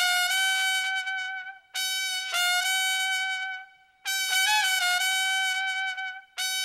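Backing music: a brass line, trumpet-like, playing long held notes on one pitch in repeated short phrases, with a brief higher note about halfway through.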